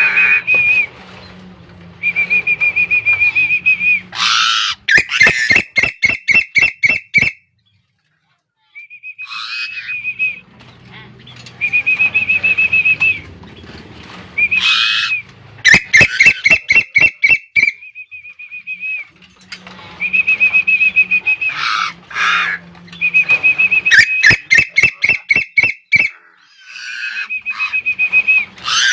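A songbird singing: a trilled whistled note held about a second, repeated again and again, broken several times by runs of sharp clicking notes, about four a second.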